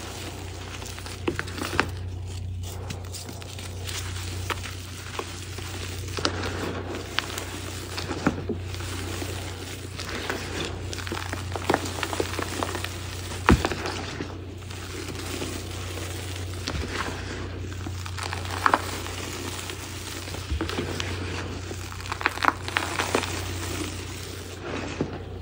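Hands squeezing and crumbling soft, gritty reformed gym chalk into powder: a continuous soft crunching and crackling of breaking chalk and squished powder, dotted with sharp little clicks and snaps.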